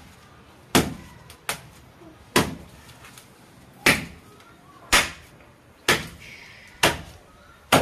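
Machete chopping into a coconut's fibrous husk to strip it: about seven sharp chops, roughly one a second, with a lighter one early on.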